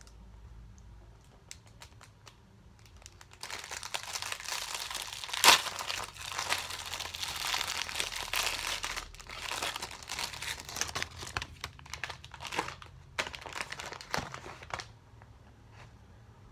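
Crinkling and rustling of a microwave popcorn package being opened, starting about three and a half seconds in, with one sharp rip of the wrapper a couple of seconds later. The folded paper popcorn bag is then handled and unfolded.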